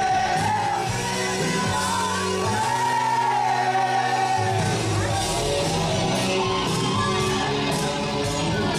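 Rock music with a singing voice carrying the tune over bass and guitars.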